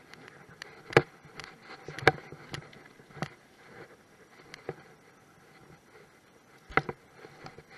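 Camera handling noise as clothing and fern fronds brush and knock against the microphone during movement through undergrowth: scattered rustles and sharp knocks, the loudest about a second in, about two seconds in and again near the end.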